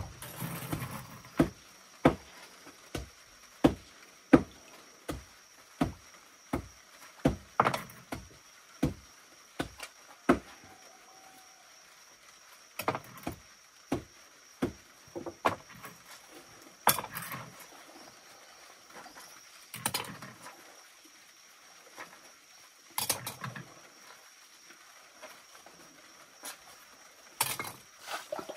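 Dishes being washed by hand: pots, plates and plastic bottles clinking and knocking against each other, quickly at first and then more sparsely, with a few splashes of water scooped and poured from a bowl.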